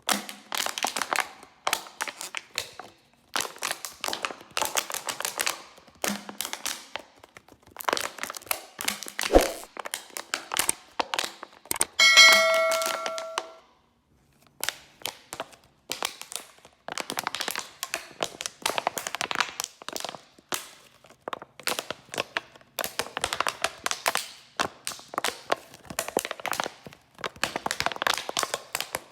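Plastic bottle being squeezed and crushed, crackling in bursts with short pauses between. About twelve seconds in, a bottle is struck once and rings for about a second and a half.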